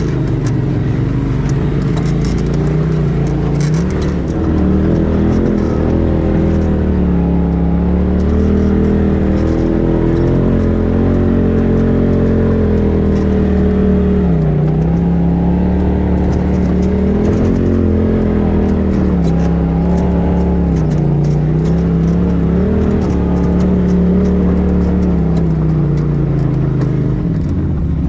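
Polaris RZR side-by-side engine heard from inside the cab, running at low trail speed and revving up and easing off again and again as it works over rocky ground. Light clicks and rattles sound over it.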